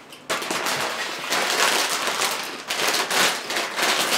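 Tortilla chips being crunched and chewed loudly right at the microphone: a dense, rapid crackle that starts abruptly and goes on with brief dips.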